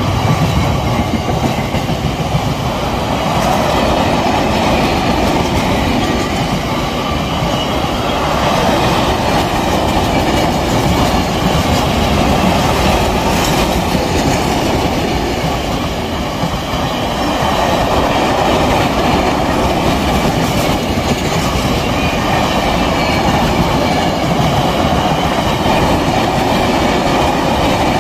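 A loaded freight train rolling steadily past at close range: a continuous rumble and rattle of wagon wheels on the rails, with a thin high ringing from the wheels running through it.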